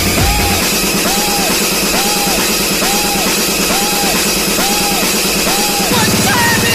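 Electronic dance music with a steady beat played loud through a large outdoor sound system under test, a short arching synth phrase repeating about once a second. The deep bass cuts out about half a second in and comes back near the end as a buzzing bass line.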